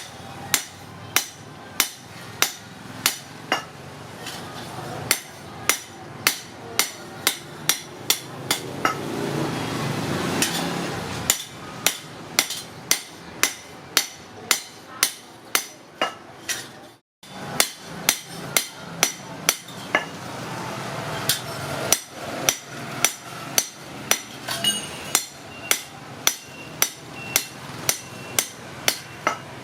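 Hammer striking metal in a steady run of blows, about two a second, each with a short metallic ring, as the cleaver blade is hammered. A rushing noise swells under the blows about a third of the way in, and the blows stop for a moment just past halfway.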